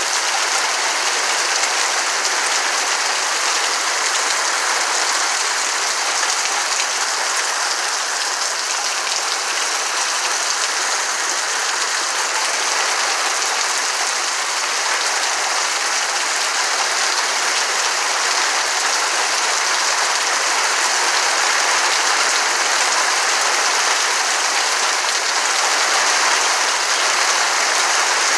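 Heavy rain pouring steadily onto evergreen trees, a dense even wash of falling rain with no let-up.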